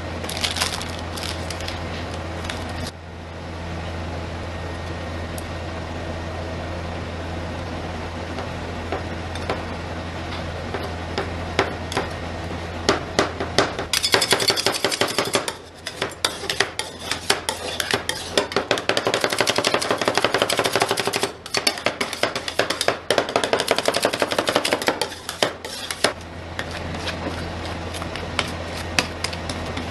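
Metal spatulas tapping, chopping and scraping on a steel ice-cream cold plate as a candy bar is chopped into the cream. The strokes come thick and fast from about halfway in. A steady low hum runs under the first half.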